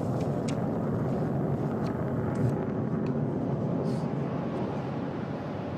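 Jet noise from a Lockheed Martin F-22 Raptor's twin Pratt & Whitney F119 turbofans as it flies past, a steady rushing sound that eases off slightly near the end.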